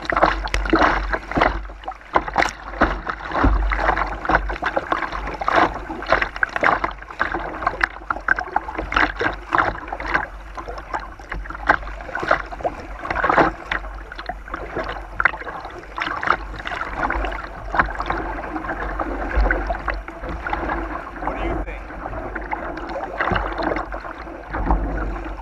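River water splashing and rushing against a plastic kayak's hull, heard close up from a camera on the bow, with many short irregular splashes over a steady low rumble.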